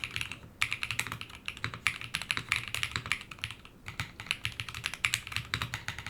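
Typing on a TGR Jane v2 ME TKL mechanical keyboard with lubed DesignerStudio Peach Bloom linear switches, a frosted polycarbonate plate, an O-ring mount and PBT Cherry-profile keycaps. Rapid runs of keystrokes with brief pauses about half a second in and near the four-second mark.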